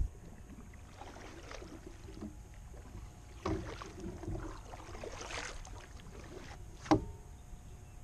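Kayak paddle strokes: soft swishes and splashes of the blade through the water, and a single sharp knock near the end.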